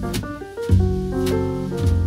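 Instrumental background music: sustained chords over changing bass notes, with a steady beat of light drum strokes.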